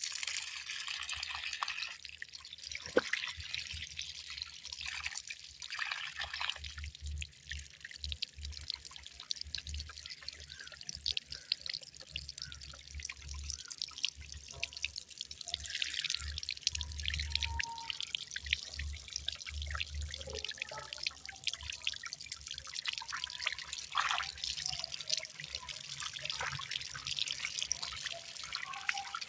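Water trickling and dripping: a steady hiss crowded with small ticks and splashes.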